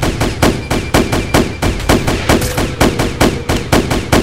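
Rapid gunfire sound effect: sharp shots about five a second, like machine-gun fire, over a low steady backing tone.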